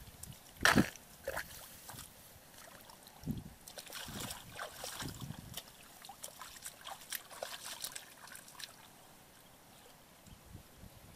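Hands sloshing and splashing in shallow muddy paddy water while groping through the mud for fish: irregular splashes and squelches, the loudest about a second in, growing fainter near the end.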